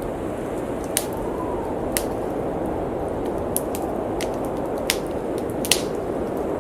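Blizzard wind blowing steadily as a low rush, with a faint whistling gust rising and falling early on, and a wood fire in a fireplace giving sharp pops and crackles every second or so.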